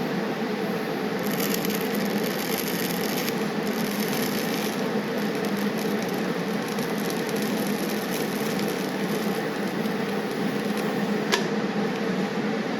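Steady machine hum, with a stretch of high crackling from about one to five seconds in and a single sharp click near the end.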